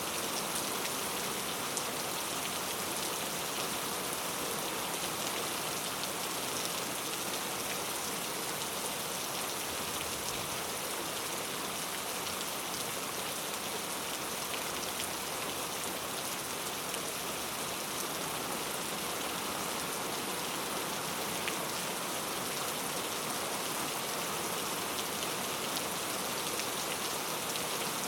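Heavy rain falling steadily on a camping tent, an even dense hiss with a few sharper ticks of single drops.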